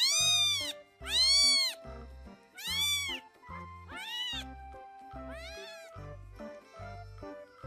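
A cat meowing repeatedly: about five meows, each rising then falling in pitch, the later ones fainter, over background music with a steady beat.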